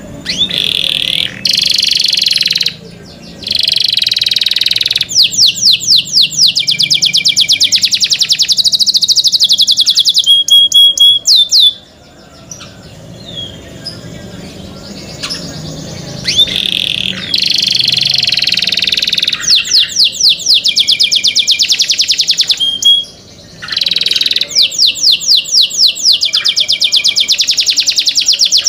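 Domestic canary singing a long, loud song of rapid trills and rolled phrases of quickly repeated high notes, with short breaks between phrases and a quieter passage about halfway through.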